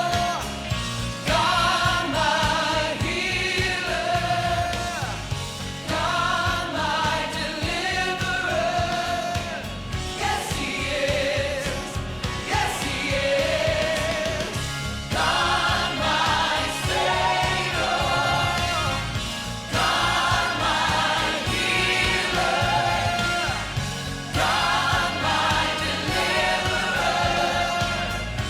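A group of voices singing a hymn together with instrumental accompaniment, in phrases separated by brief breaths.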